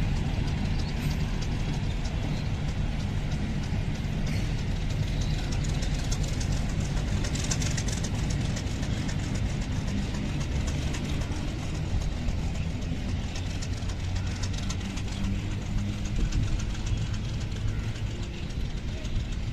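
Intercity passenger train's coaches rolling along the track: a steady low rumble with many wheel clicks, easing slightly near the end.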